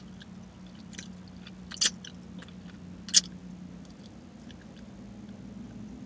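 Mouth sounds while chewing: a few wet lip smacks and tongue clicks, two sharper ones about two and three seconds in, over a steady low hum.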